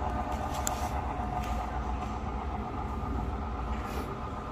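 Model-railroad diesel locomotives running through a yard: a steady low hum with a few steady tones above it, and three light clicks.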